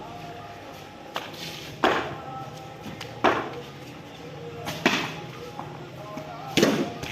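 Sharp knocks of cricket bat and ball, five in all at uneven gaps, each with a short rushing tail.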